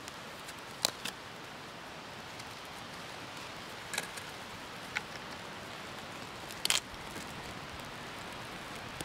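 Campfire burning: a steady hiss with a few sharp crackles and pops scattered through it.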